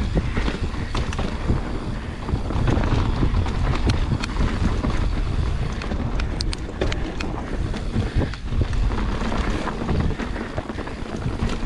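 Mountain bike descending a dirt trail at speed: wind rushing over the microphone and tyres rolling on dirt, with frequent clicks and rattles as the bike goes over bumps.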